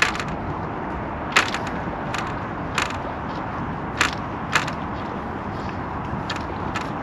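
Wind buffeting the microphone in a steady rush, broken by about eight short sharp clicks at irregular intervals.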